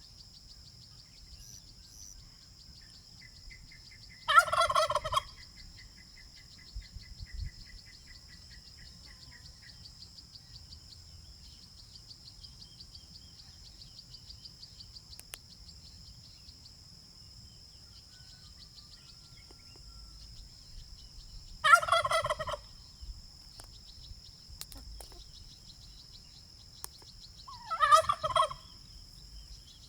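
Domestic turkey gobbling three times, each gobble a short, rapid rattling call lasting under a second: about four seconds in, about 22 seconds in, and near the end. A steady high-pitched buzz runs underneath, with a faint bird trill in the first few seconds.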